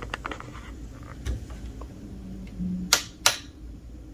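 A few faint ticks, then two loud, sharp clicks about a third of a second apart, three seconds in.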